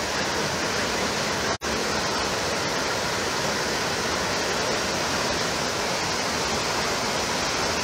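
Floodwater rushing fast down a narrow stream channel in spate, a steady, even wash of churning water. The sound cuts out for an instant about a second and a half in.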